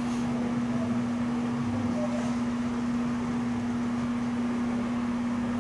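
A steady, unchanging hum: one constant low tone over an even hiss, with no breaks or strokes.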